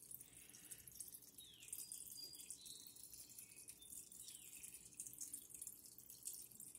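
Faint trickling and dripping of water circulating through a running cyclone sand filter, with a fine steady crackle.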